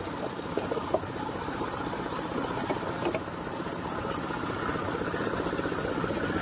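Small single-cylinder Changfa 180 water-cooled diesel engine running a mini concrete mixer-lift, with a fast, even chugging beat that grows a little louder from about halfway through. A few light knocks come in the first second.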